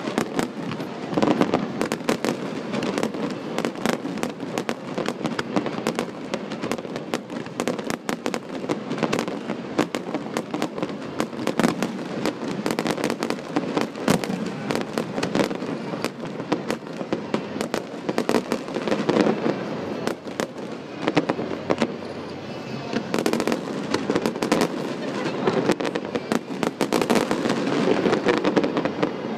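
Aerial fireworks display: a dense, continuous run of bangs and crackling with no pause.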